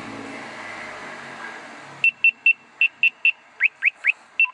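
A radar detector's start-up beeps: about seven short, high, even beeps with three quick rising chirps among them, starting about two seconds in. Under it, the BMW F30's just-started engine settles toward idle, its rush fading over the first two seconds.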